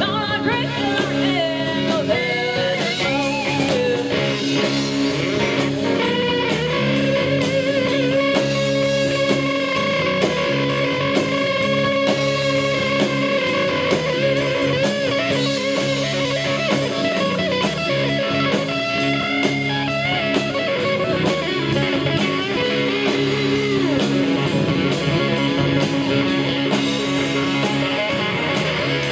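Live rock band playing an instrumental break: an electric guitar solo with bending, sliding notes over bass guitar and drums.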